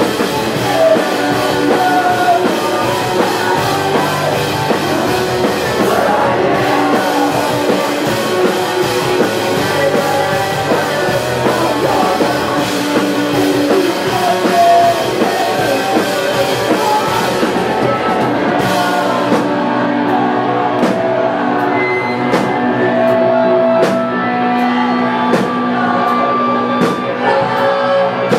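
Rock band playing live: electric guitars, bass and drum kit, with singing. About two-thirds of the way through, the cymbal wash drops out, leaving held guitar notes over a steady tick about once a second.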